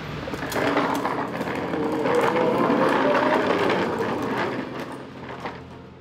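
Hard plastic wheels of a ride-on toy car rolling and rattling over paving stones, fading out near the end.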